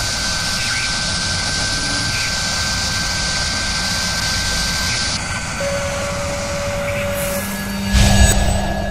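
Synthetic sound effects for an animated logo outro: a steady rushing noise with a thin held tone, then a loud low boom about eight seconds in.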